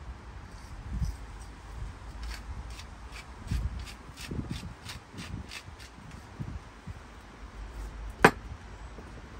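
A run of quick, light scraping strokes, about three a second, with soft low thuds, then one sharp click near the end.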